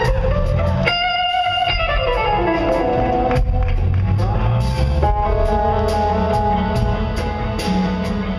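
Live blues-rock band with an electric guitar playing lead: long held notes, a new one about a second in and another about five seconds in, over bass guitar and drums with steady cymbal strikes.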